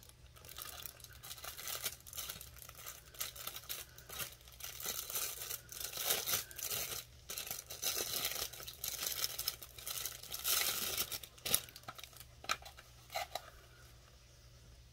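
Clear plastic shrink-wrap being torn and crinkled off a small cardboard lipstick box. The dense crinkling lasts until about eleven seconds in, followed by a few light ticks.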